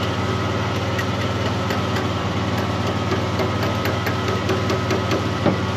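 Engine of the rig-mounted Miller welder running at a steady idle, with scattered light clicks and one louder knock near the end.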